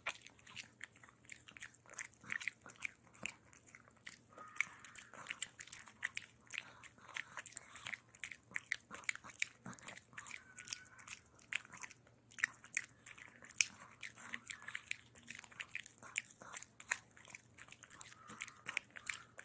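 A Chihuahua gnawing a hard dental chew: an irregular run of small crunches and clicks of teeth on the chew, several a second.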